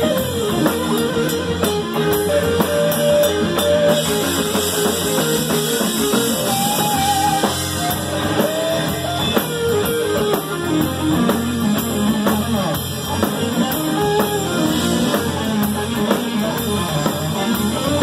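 Live band playing: electric guitar running melodic lines over a drum kit with cymbals and a low bass part underneath.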